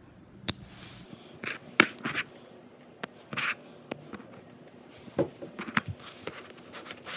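Small Buckyballs magnet balls clicking as they snap together, a series of sharp clicks about once a second, with brief rustling scrapes of fingers handling the magnet pieces.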